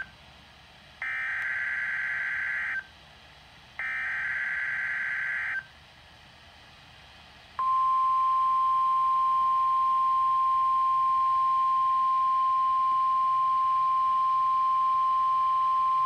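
NOAA Weather Radio emergency alert played through a Midland weather alert radio's speaker: two short screechy bursts of the digital SAME header, each under two seconds, then the steady single-pitch warning alarm tone for about nine seconds, announcing a severe thunderstorm watch.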